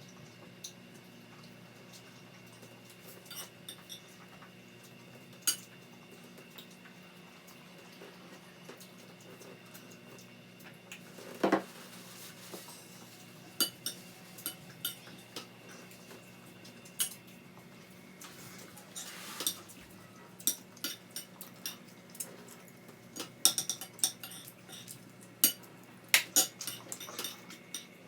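Cutlery clinking and scraping against plates and bowls while eating: scattered light clicks, sparse at first and coming much more often in the last third, with one louder pitched scrape about eleven seconds in, over a faint steady hum.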